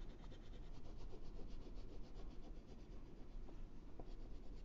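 Wax crayon rubbing on paper in quick back-and-forth strokes, about eight to ten a second, as purple is coloured into a patch of the drawing. The sound is faint.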